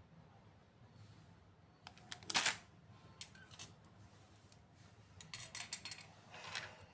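Clicks and rustling of small items being handled, loudest about two seconds in, with a quick run of clicks near the end.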